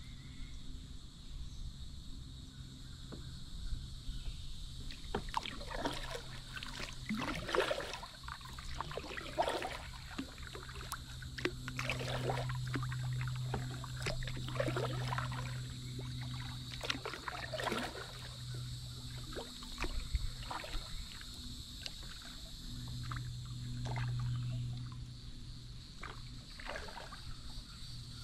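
Kayak paddle strokes, a run of splashes and drips that thins out after about twenty seconds, over a low steady hum and a steady high-pitched buzz.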